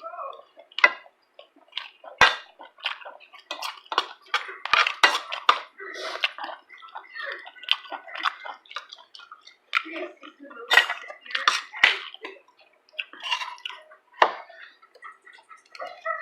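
Eating sounds: wet chewing and slurping mixed with cutlery clinking against dishes, in short irregular bursts.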